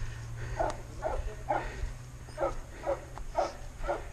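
A person panting hard while pushing a mountain bike up a steep climb, short rapid breaths about two to three a second: out of breath from the climb.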